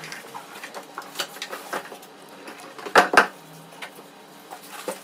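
An RV water heater being pulled out of its packing box: scattered clicks and rustling knocks as it is handled, with two loud knocks in quick succession about three seconds in.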